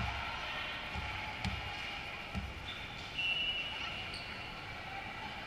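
Volleyball bounced on a gym floor, four dull thuds about a second apart over the murmur of a gym hall, with a short high tone a little after three seconds in.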